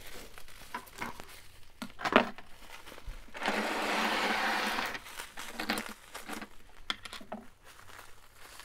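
Metal costume-jewelry brooches being handled: scattered clicks and taps as pieces are picked up and set down, and a steady rustling clatter of about a second and a half near the middle as the box of pins is rummaged through.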